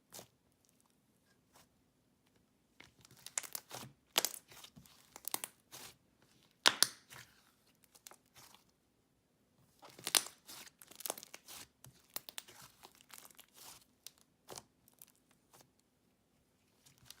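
Soft, creamy butter slime worked by hand, stretched, folded and pressed, giving clusters of sticky crackles and small pops with quiet pauses between.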